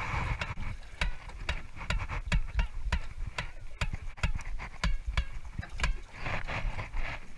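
Spinning reel's drag clicking in short, irregular runs, a few sharp clicks a second, as a big fish, likely a stingray, pulls line off the reel against the held rod.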